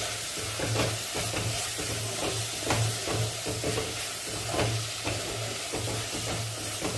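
Wooden spatula stirring chopped onions, tomatoes and garlic frying in oil in a clay pot, with a steady sizzle and repeated irregular scrapes against the pot. A low hum sits underneath.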